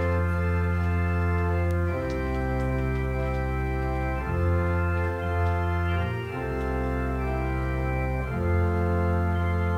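Church organ playing a hymn in slow, held chords that change about every two seconds.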